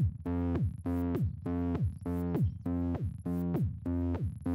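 Electronic background music: a synthesizer riff of short repeating chords, about two a second, each with a quickly falling bass tone.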